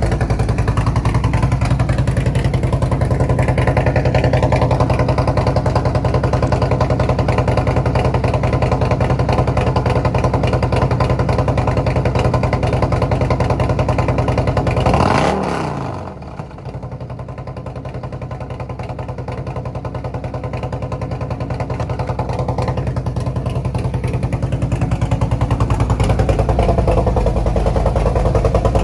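Harley-Davidson Road Glide's rebuilt 131 cubic-inch V-twin running at idle through a loud aftermarket exhaust, warming up after a cold start, with a steady even pulse. About halfway through there is a short swell, then the sound drops quieter and builds back up over several seconds.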